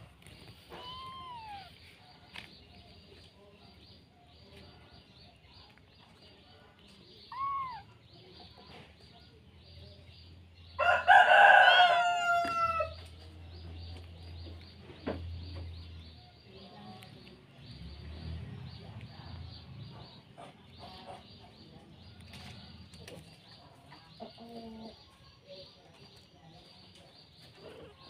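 A loud, drawn-out animal call lasting about two seconds, roughly 11 seconds in, preceded by two short arching calls. The rest is quiet background with faint light knocks.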